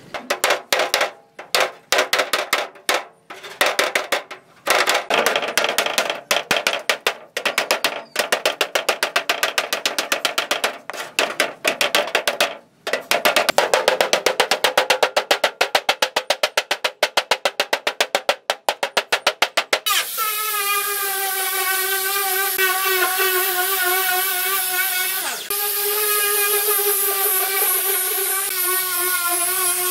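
A hammer beats on a rusted steel car hood in quick runs of several blows a second, with short pauses, for about twenty seconds. Then an angle grinder with a wire wheel starts and runs with a steady whine, scrubbing rust off the panel.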